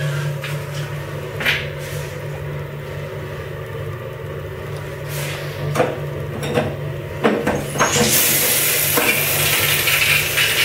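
A few clicks and knocks as a shower valve handle is turned, then the shower starts spraying about eight seconds in, a loud steady hiss of running water. A steady low hum runs underneath throughout.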